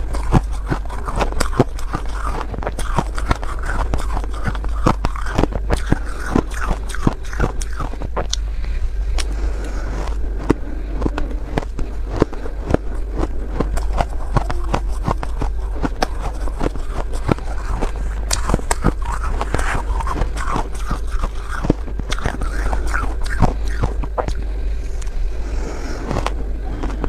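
Close-miked soft crunching and chewing of pink shaved 'cotton ice', a dense run of small crackles, with a metal spoon scraping and scooping the ice in the bowl. A steady low hum sits underneath.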